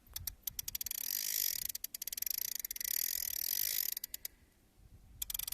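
Fishing reel's drag clicking rapidly as a hooked barbel runs and pulls line off the spool. It runs for about four seconds, pauses briefly, then starts again near the end.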